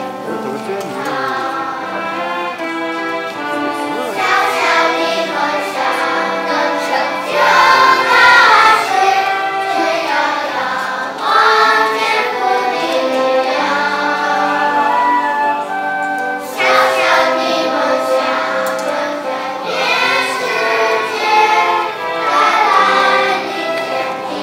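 Children's choir singing a slow song in sustained phrases, growing louder at the start of each new phrase every few seconds.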